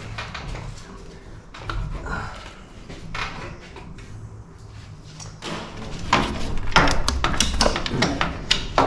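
Metal race-car parts being handled and knocked about during a teardown: scattered soft knocks, then a busy run of louder clanks and knocks from about halfway through.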